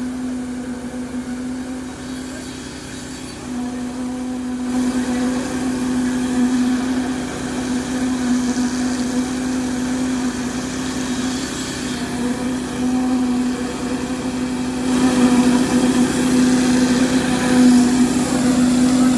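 An engine running steadily on one held pitch, with extra mechanical noise joining in about five seconds in and again near the end.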